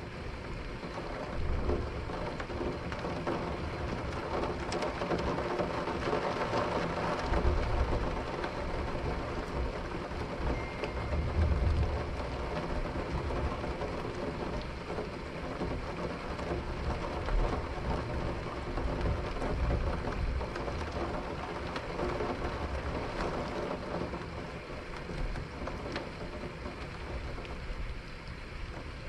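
Steady rain with low rumbles of thunder, swelling twice in the first half.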